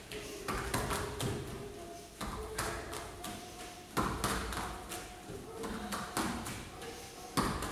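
Bare feet landing on a foam step block and a rubber gym floor during quick step-ups: a string of irregular thumps, the loudest about four seconds in and near the end.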